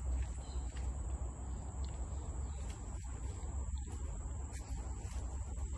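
Insects chirring in a steady, high-pitched drone over a low rumble, with a few faint clicks.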